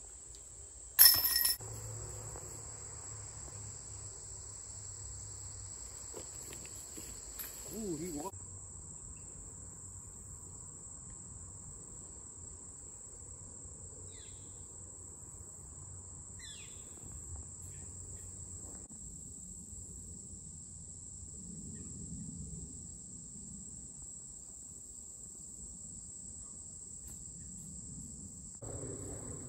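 Insects buzzing in a steady high-pitched chorus, with a single sharp metallic clank and short ring about a second in.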